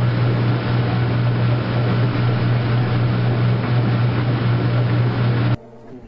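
Washing machine running with a loud steady hum and hiss, a low buzzing tone under it, that cuts off abruptly about five and a half seconds in.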